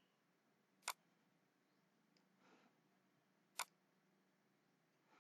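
Two sharp computer mouse clicks, about a second in and again near the end, over near-silent room tone.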